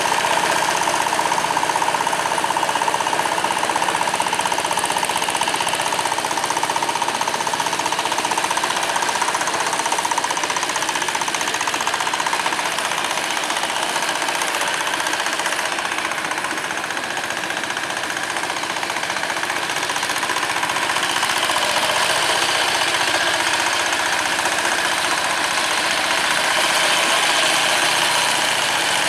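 Single-cylinder diesel engine of a two-wheel hand tractor running under load with a steady, rapid clatter while its iron cage wheels drive through flooded rice-field mud.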